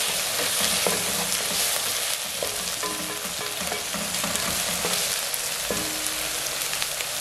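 Onions and coriander stalks sizzling in oil in a pot (sufuria), with a spoon repeatedly scraping and clinking against the pot as they are stirred.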